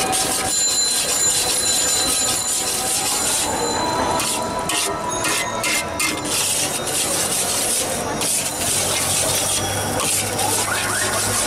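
Metal spatula scraping and stirring egg and shredded vegetables around a hot steel wok, with oil sizzling.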